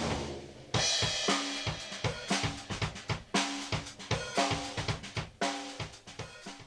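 Drum kit played as a closing flourish: one cymbal-and-drum hit, then after a short pause a fast, busy rhythm of drum and cymbal strokes with strong accents about once a second, dying away near the end.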